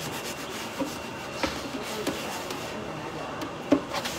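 Scrubbing by hand at a kitchen sink: a steady rubbing with a few light knocks, the sharpest one near the end.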